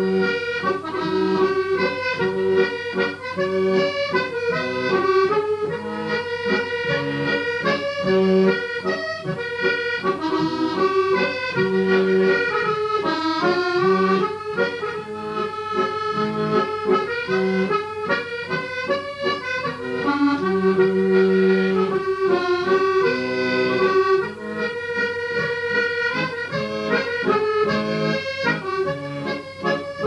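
Accordion playing a traditional tune, a melody over repeating bass notes.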